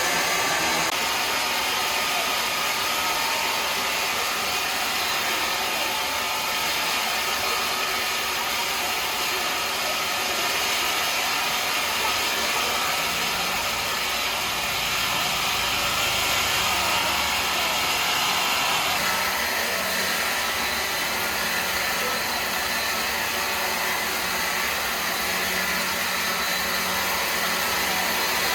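Woodworking machinery running steadily: a continuous, even whir with a hiss on top, changing slightly in tone about two-thirds of the way through.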